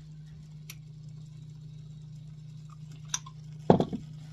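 Kitchen handling sounds over a steady low hum: a few faint clicks, then one solid knock with a smaller one right after, a little past three and a half seconds in.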